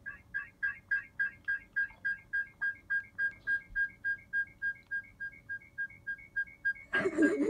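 A rapid, even train of short high-pitched chirps on a single pitch, about four or five a second; near the end a louder voice-like sound breaks in over it.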